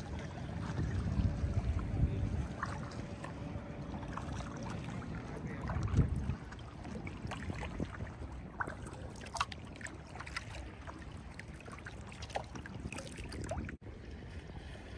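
Kayak paddle blades dipping and splashing in the water, with dripping and light knocks. Low gusts of wind rumble on the microphone swell about a second in and again around six seconds.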